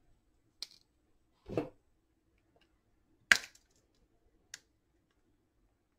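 Small pliers clicking and snapping against a metal oxide varistor disc as its epoxy dip coating is cracked off to reach the terminals. The loudest sharp snap comes about three seconds in, with a duller knock about a second and a half in and a few lighter clicks.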